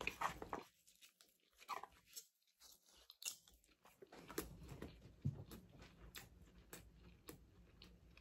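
Faint chewing and crunching of a mouthful of raw-vegetable salad bowl, in short scattered crunches, with a near-silent stretch about a second in.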